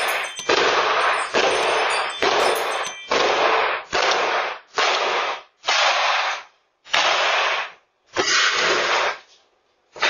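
Repeated kicks against an apartment entry door, about one bang a second and slowing near the end. Heard through a doorbell camera's microphone, each bang comes through as a loud rush of noise lasting most of a second.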